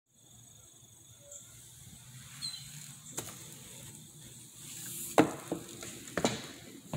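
Footsteps of hard-soled shoes, a few sharp steps roughly a second apart, the loudest about five seconds in.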